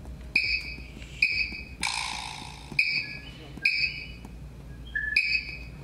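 Sparse soundtrack of a contemporary dance solo: short high chirps about once a second, with a longer hissing burst about two seconds in, over a low steady hum.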